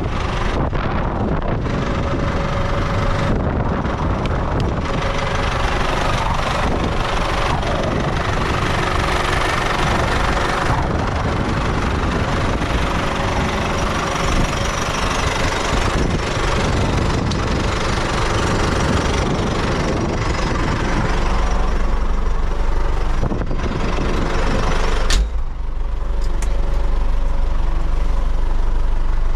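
MTZ-80 tractor's D-243 four-cylinder diesel engine running on the move, mixed with road and wind noise; about two-thirds of the way through the rushing noise falls away and the diesel settles into a steady, low idle, with a single sharp click a few seconds later.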